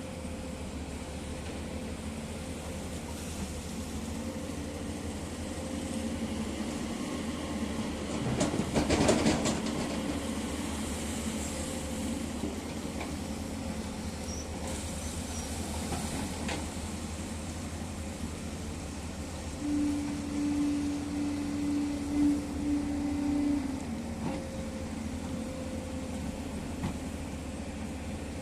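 Excavator diesel engines running steadily. There is a burst of metallic clanking about eight to ten seconds in, and a steady higher tone that holds for about four seconds near the twenty-second mark.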